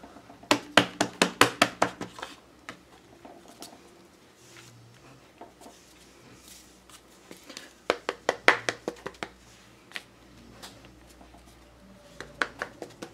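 Quick runs of light clicking taps, several a second, as a stamp on its block is tapped onto an ink pad to ink it. There are three runs: about half a second in, around eight seconds in, and near the end.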